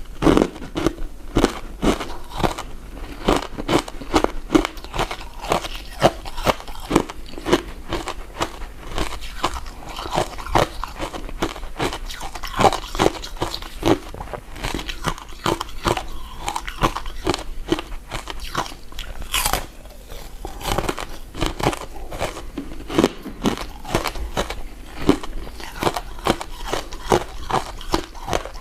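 Close-miked eating sounds: someone chewing soft, sticky glutinous rice desserts, a continuous run of mouth clicks and smacks, several a second.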